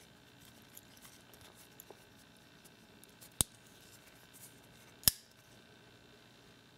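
Colt CT507 aluminium lockback folding knife being handled: faint small clicks, then two sharp metallic clicks of the blade and lockback mechanism, about a second and a half apart.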